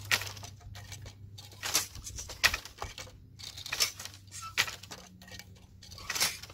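Wooden floor loom being worked by hand: a blue weft shuttle is thrown through the shed and the beater is pulled against the cloth, giving a string of sharp wooden knocks and clacks every second or so, the loudest about two and a half seconds in.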